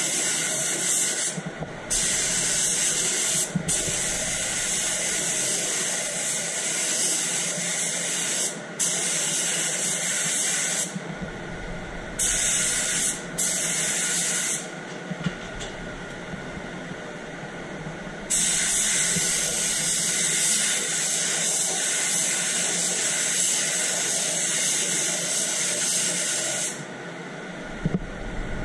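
SATA 4000 spray gun with a 1.4 tip spraying paint: a steady hiss of atomising air in long passes, broken off several times as the trigger is released and stopping near the end. A quieter steady rush of air carries on in the pauses.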